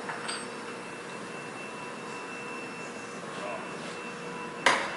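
Steady machine hum of a workshop, with a few faint clicks early on and one sharp knock near the end.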